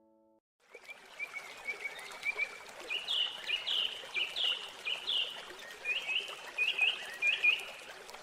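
Songbirds chirping outdoors: a run of short, repeated notes that comes in about a second in and grows more insistent midway, over a steady background hiss.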